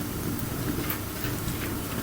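Wood fire burning steadily, with a low rushing noise and a few faint crackles and pops.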